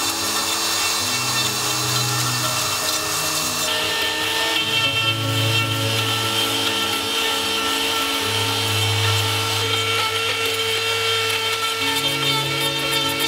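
High-powered straight grinder with a wood-carving burr grinding into wood: a steady motor whine with rasping, over sustained background music.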